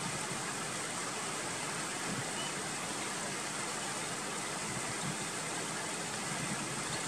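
Steady outdoor background noise: an even hiss across the range with a brighter, high, steady band, unchanging throughout and with no distinct bird calls.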